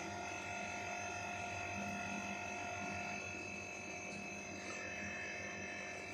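A steady electrical hum made of several unchanging tones, with no distinct events.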